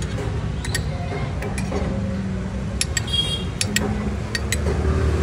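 Steel spoon and bottle clinking against drinking glasses: about ten short, sharp clinks, one ringing briefly about three seconds in. A steady low rumble runs underneath.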